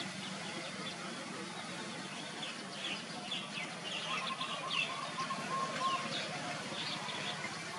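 Small birds chirping in a quick run of short, high calls from about two and a half seconds in until near the end, over a steady background hiss.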